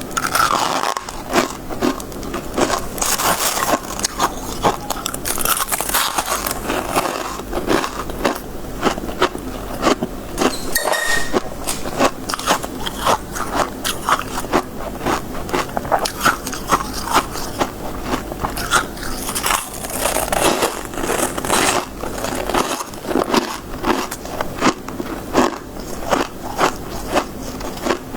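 Close-miked biting and chewing of soft freezer frost, like shaved ice: a dense run of crisp crunches with no steady beat.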